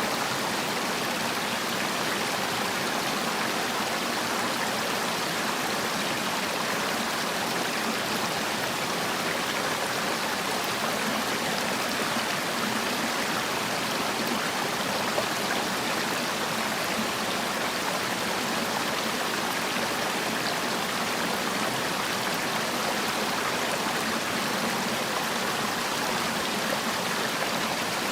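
Mountain stream water rushing and splashing over rocks, a steady, even flow.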